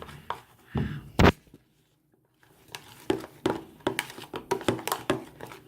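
Slime mixture being stirred in a bowl: a knock about a second in, then a quick run of short wet clicks and squelches.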